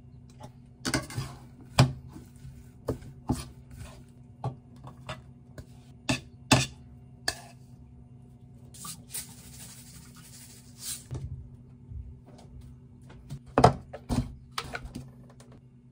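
Chopsticks clicking and knocking against a ceramic mixing bowl as chives and red-pepper seasoning are tossed, then a rushing scrape as the mixture is scraped out of the tipped bowl into a serving dish. Near the end, a few sharp knocks as a plastic container of cooked rice is tapped out into the bowl.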